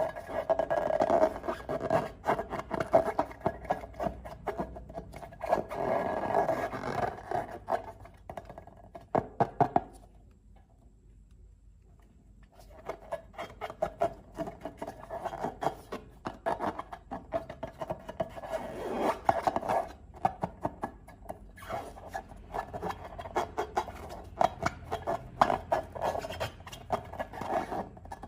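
Slime being squeezed and worked by hand, with dense wet clicking and crackling, pausing for a couple of seconds about ten seconds in before carrying on.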